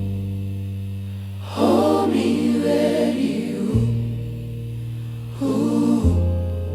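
Slow gospel song: voices sing phrases over long held low notes that change every two to three seconds.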